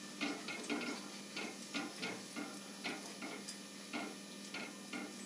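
Steel spoon tapping and scraping lightly on a paratha on a tawa while spreading oil over it: a run of small clicks, about three a second.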